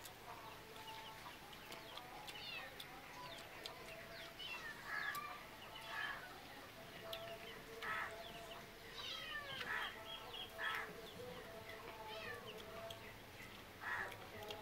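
Chickens clucking, with many short high chirps throughout and louder calls about five, six, eight, ten and fourteen seconds in.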